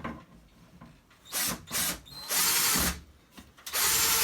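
Power drill driving a screw into sheetrock: a few short trigger bursts, then a longer run of about a second whose motor pitch falls as it stops near the end.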